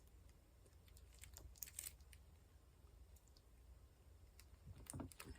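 Faint, scattered small clicks and taps of diamond-painting work: a drill pen picking up square resin drills and pressing them onto the canvas, with a slightly louder soft knock near the end.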